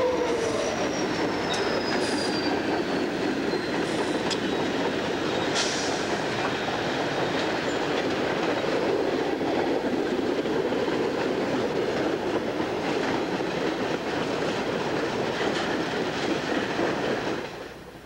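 CSX freight train passing close by, diesel locomotives and then covered hopper cars rolling past with a dense, steady rumble and rattle. A thin, high wheel squeal slides down in pitch over the first few seconds, and a few sharp clicks come through. The sound cuts off suddenly just before the end.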